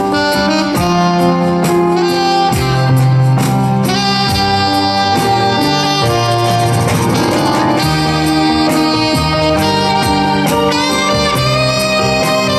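Jazz band playing live, a saxophone carrying the melody over a bass line and a steady drum beat.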